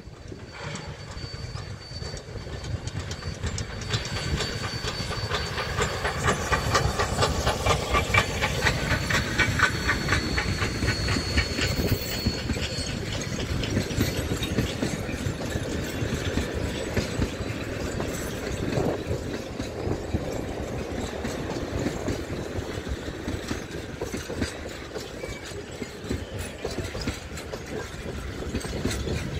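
Queensland Rail C17 class 4-8-0 steam locomotive No. 967 hauling a train of carriages past at close range. The sound swells about four seconds in and is loudest with a regular beat while the engine goes by, then the carriages roll past, wheels clacking over the rail joints.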